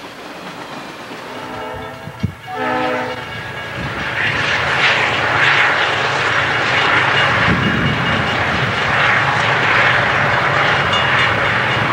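A diesel freight locomotive's horn blows a chord about a second in. From about four seconds in, a CSX coal train rolls through a grade crossing with a steady rumble and a clatter of wheels on the rails.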